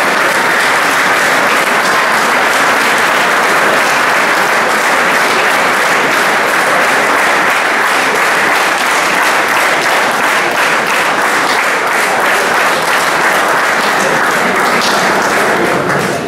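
Audience applauding steadily in a hall: dense, continuous clapping from many hands.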